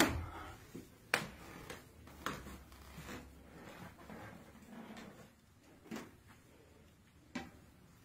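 A sharp knock, then several lighter knocks and clicks at irregular intervals, with a faint low hum under the first few seconds.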